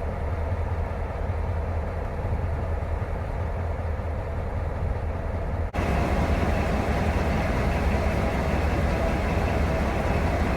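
Diesel locomotives of Sri Lanka Railways running with a steady deep rumble. The sound jumps abruptly about six seconds in and is louder and fuller after that.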